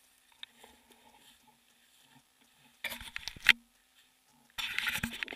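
Dry leaf litter crunching and crackling underfoot in two bursts of quick movement, the first ending in one sharp loud click about three and a half seconds in.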